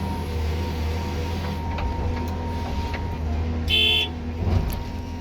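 Cat 323 GC excavator's diesel engine running with a steady low hum. A short high beep sounds nearly four seconds in, with a few light clicks before it and a knock just after.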